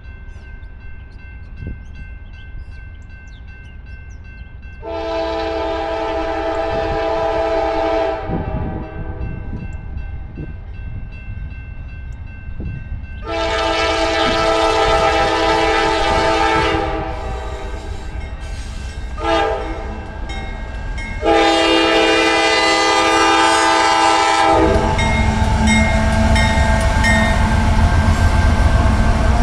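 Freight locomotive air horn sounding the grade-crossing signal: two long blasts, a short one, then a long one, over the rumble of the approaching train. Near the end the lead diesel locomotives pass close by with a loud, deep rumble.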